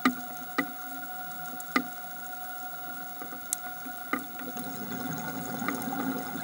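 Underwater sound on a coral reef, picked up through a camera housing: a steady two-tone hum with about six sharp, irregular clicks, and a low rushing that swells near the end.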